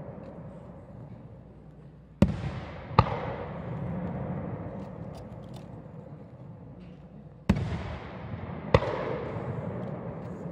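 Aerial firework shells going off: two pairs of sharp bangs, the first pair about two seconds in and the second about seven and a half seconds in. Each bang is followed by a long rolling echo that fades slowly.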